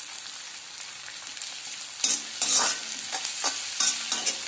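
Sliced onions sizzling in hot oil in an iron kadhai over a high flame. A metal spatula scrapes and knocks against the pan as they are stirred, quieter at first and with a run of sharp strokes from about two seconds in.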